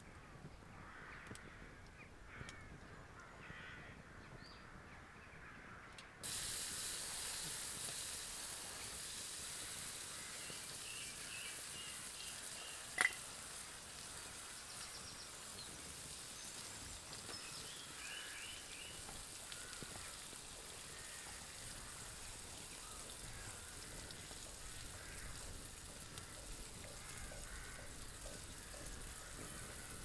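Bacon frying on a wood-burning Firebox stove: a steady sizzle starts abruptly about six seconds in and carries on, with one sharp click about halfway through and birds calling in the background.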